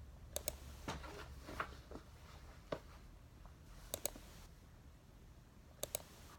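Three sharp double clicks, each pair about a tenth of a second apart, with a few softer scratchy taps between the first two pairs, over a low steady hum.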